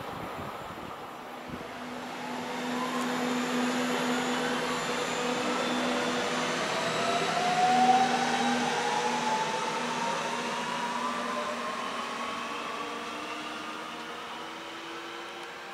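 Regional electric multiple unit running past and accelerating, its traction motors giving a whine that rises steadily in pitch. It is loudest about eight seconds in and fades as the train draws away.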